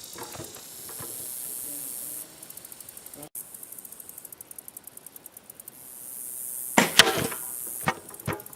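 A single crossbow shot about seven seconds in: the Barnett Quad 400 releasing with a sharp crack that rings briefly. Two shorter, sharp knocks follow about a second later.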